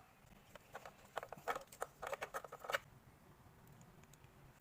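A quick run of small sharp clicks and taps lasting about two seconds, then stopping, as of small hard parts being handled or snapped together.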